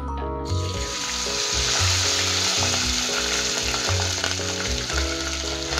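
Boiled, food-coloured rice hitting hot ghee in a metal pot, sizzling loudly from about half a second in as it is spooned in. A steady background music track plays underneath.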